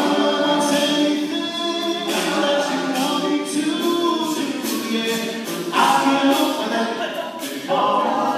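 All-male a cappella group singing a pop song in close vocal harmony, with a sharp ticking beat running above the voices.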